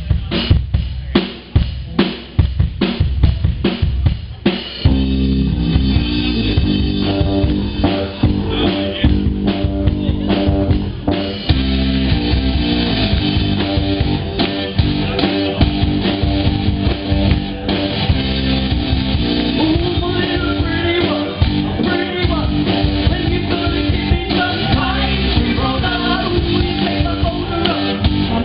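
Live rock band opening a song: about four seconds of drum-kit hits, then bass guitar and guitar join for an instrumental intro on a steady beat, getting fuller about eleven seconds in.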